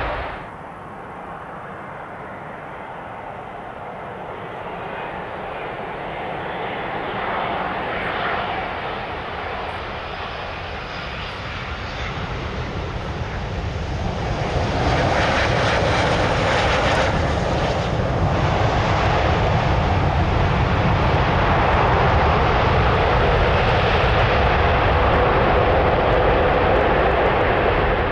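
Twin jet engines of a Boeing 787-9 airliner on landing, a steady rushing noise that grows louder through the first half and then stays loud as the aircraft comes down onto the runway.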